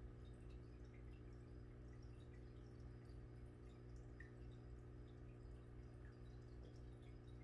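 Faint aquarium bubbling: scattered small drips and pops from the air bubble column at the water surface, over a steady low hum.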